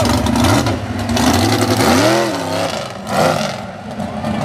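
Mega truck engine revving hard, rising and falling in pitch about two seconds in and again shortly after, over a steady rushing noise.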